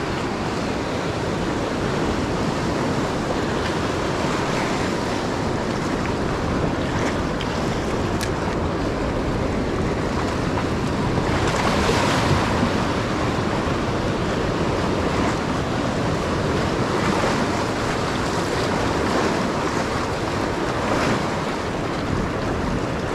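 Sea surf breaking and washing over shoreline rocks, with wind on the microphone; the wash comes in surges, loudest about halfway through.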